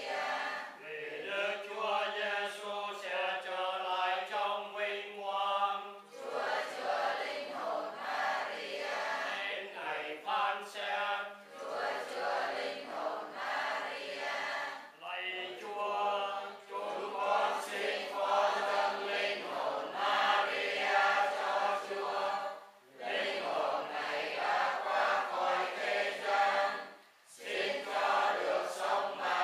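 A congregation chanting prayers together in unison, a sing-song group recitation of many voices with a few short breaks between phrases.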